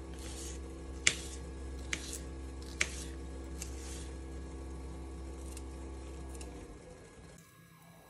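A knife cutting a yellow bell pepper on a wooden cutting board, with a few sharp knocks of the blade on the board. The loudest knock is about a second in. A steady low hum runs underneath and stops near the end.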